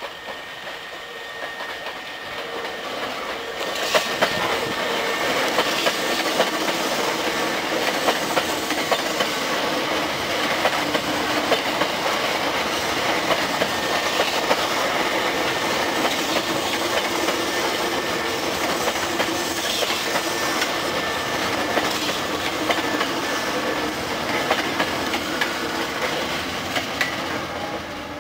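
A Hankyu 5300 series eight-car electric train pulls away and runs past, getting louder over the first few seconds. Its Toyo Denki resistance-controlled traction motors make a steady whine over a regular clatter of wheels on rail joints.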